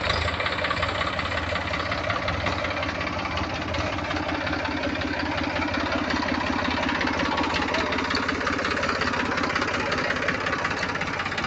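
Farm tractor's diesel engine running steadily, with a fast, even beat, as the tractor works through wet mud on iron cage wheels.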